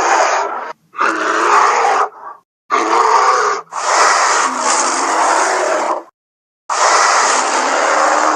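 A series of bear roars and growls: about five separate rough roars, each one to two seconds long, with short silent gaps between them; the longest comes in the middle.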